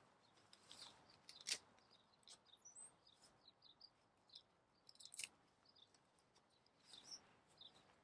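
Faint outdoor quiet with scattered short, high bird chirps, and two sharp clicks, about one and a half and five seconds in, from the nylon tent and its fittings being handled.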